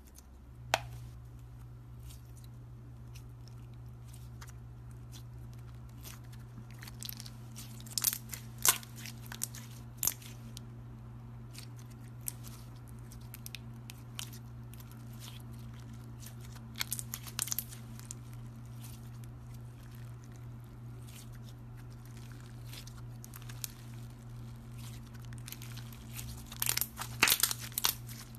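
Clear slime with coloured pieces inside being squeezed and kneaded by hand, giving scattered clusters of sharp crackles and pops over a steady low hum.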